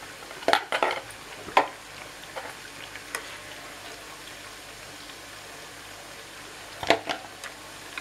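Cowpea vadas (bobbarlu garelu) sizzling steadily as they deep-fry in hot oil in a deep pan. A steel ladle clinks against the pan a few times in the first couple of seconds and twice more, loudest, near the end, as the vadas are lifted out.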